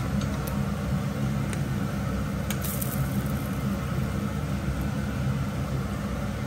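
Small whole fish deep-frying in hot oil, a steady sizzle under a constant low hum, with a few light clicks of wire tongs against the pan as the fish are turned.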